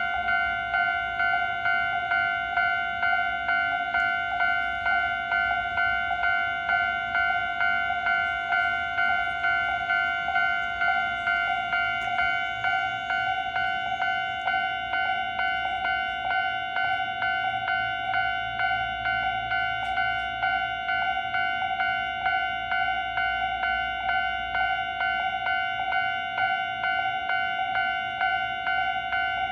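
Japanese railway level-crossing alarm: the electronic warning bell rings in an even, rapid string of identical dings, signalling that a train is approaching or passing.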